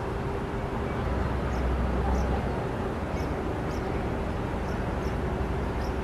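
Outdoor background noise: a steady hiss with a low rumble that swells about a second in and fades, a faint steady hum, and faint short high chirps here and there.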